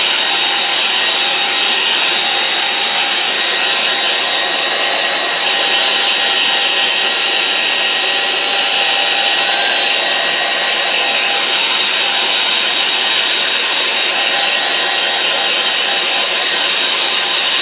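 Hairdryer blowing steadily to dry a watercolour painting: an even rush of air with a steady high whine from its motor.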